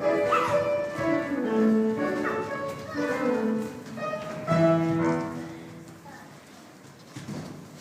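Classical music playing for the ballet class, a series of held notes that ends about five and a half seconds in, leaving faint room sound.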